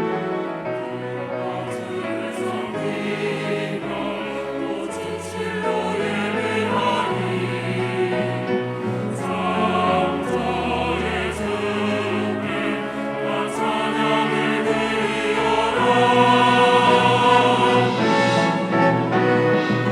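Church choir singing an anthem with instrumental accompaniment, with held chords over a slowly moving bass line. It grows louder a few seconds before the end.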